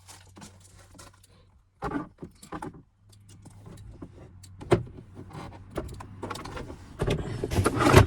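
Plastic center-console trim being handled and pushed into place: scattered light clicks, knocks and rattles, with one sharper click a bit past the middle and busier handling near the end.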